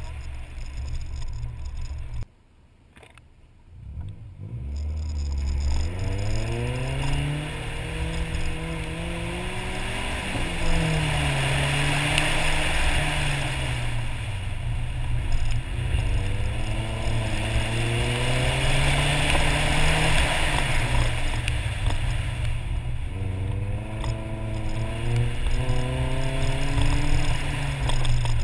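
Nissan 240SX's KA24 four-cylinder engine heard from inside the car on a wet autocross course. It cuts out briefly about two seconds in, settles at a low idle, then revs up again and again, its pitch climbing and falling as the car accelerates and slows between corners, over a steady hiss of wet tyres and spray.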